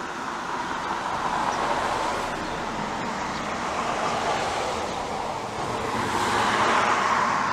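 Steady road traffic noise, swelling as a vehicle passes about six seconds in.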